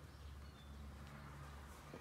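Quiet outdoor ambience: a low hum with a few faint, short bird chirps.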